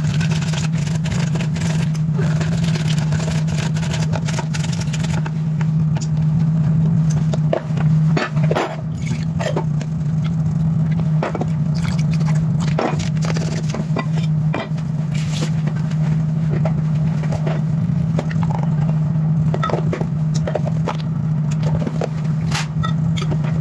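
A steady low hum throughout, under scattered scrapes, clicks and knocks of kitchen handling: a lemon worked on a plastic citrus juicer, then things set down and poured into a glass measuring jug.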